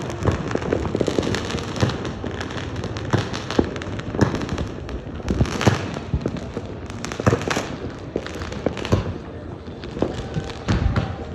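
Fireworks going off, a continuous irregular series of bangs and crackles from many directions, with distant booms in the background.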